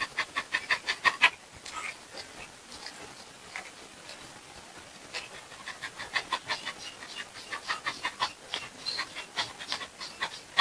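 An animal panting rapidly, about six quick breaths a second, in two spells with a fainter stretch between them.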